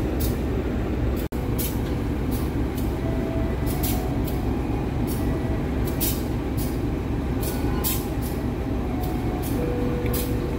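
Steady low rumble of diesel trains standing at a station, with short sharp hisses or clicks every half second to a second.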